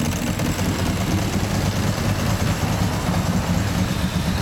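Ducati 998S Bayliss's 90° V-twin with Termignoni exhaust idling steadily.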